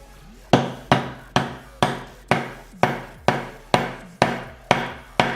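A hammer striking a socket used as a driver to start a new bushing into a 4L60E sun gear. It lands about two blows a second, evenly spaced, starting about half a second in, and each blow rings like metal.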